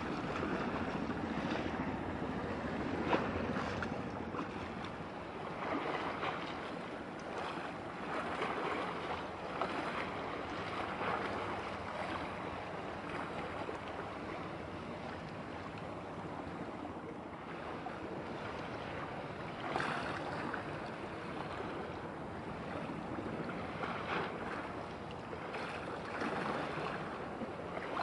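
Wind on the microphone mixed with the wash of sea water, a steady noise that swells and eases in gusts.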